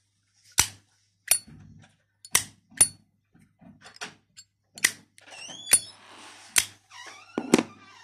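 Zippo windproof lighter being handled, its hinged metal lid clicking open and snapping shut again and again: sharp metallic clacks with a short ring, about once a second. Near the end a lighter is set down on the table with a heavier thunk.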